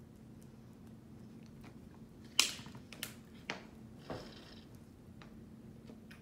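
Small plastic toy capsule being handled and picked open by hand: a few sharp plastic clicks, the loudest about two and a half seconds in, then a brief rustle around four seconds. A low steady hum runs underneath.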